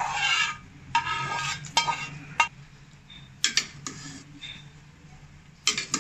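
A perforated steel ladle scrapes sautéed onions and spices out of a non-stick frying pan and knocks against the pan and the aluminium pot. It then stirs them into rice and water in the pot. The sound is a series of sharp metal clinks among scraping and sloshing.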